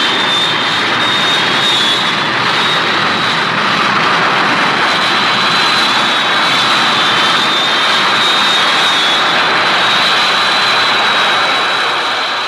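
Robot-monster sound effect: a steady jet-engine-like rush with a thin high whine running through it, holding evenly and starting to fade near the end.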